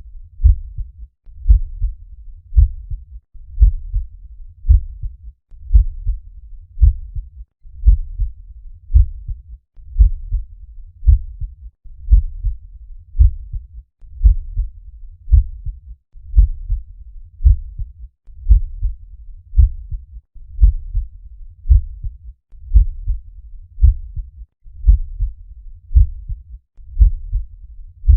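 Normal heart sounds: the paired lub-dub of the first and second heart sounds, repeating steadily at about one beat a second.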